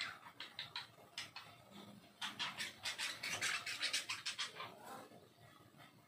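Budgerigars scratching and pecking on the seed-strewn paper floor of a wire cage: a few quick scratchy clicks, then a dense run of them starting about two seconds in.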